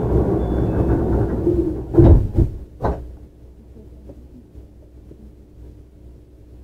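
Sliding doors of a JR 315-series electric train closing at a station stop: platform noise, then three heavy thuds about two to three seconds in as the doors shut. The outside noise is then cut off, leaving a quiet steady hum inside the standing car.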